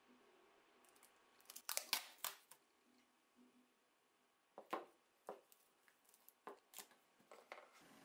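Clear packing tape being pulled off its roll and torn, with crackling as it is smoothed onto a wooden block: a quick run of rips about two seconds in, then several short separate ones.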